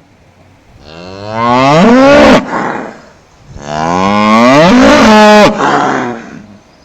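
A cow mooing twice: two long calls, each rising in pitch.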